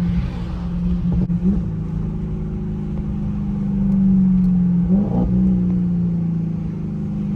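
Audi S8's twin-turbo V8 through a straight-piped exhaust (everything behind the downpipes), running with a steady low drone. It rises briefly in pitch twice, about a second and a half in and again about five seconds in.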